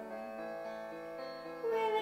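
Piano backing music holding sustained chords, with a girl's singing voice coming in near the end.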